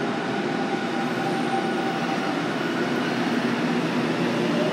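Tokyo Metro Tozai Line subway train moving along the station platform: a steady rumble of wheels and running gear with a faint steady whine over it.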